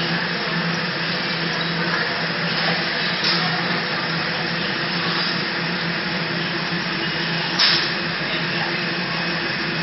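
Steady whirring of an electric air blower with a constant low hum, with one brief knock about seven and a half seconds in.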